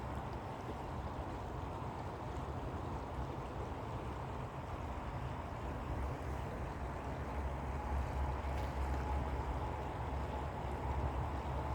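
Steady low rumble of outdoor background noise, with a faint steady tone above it.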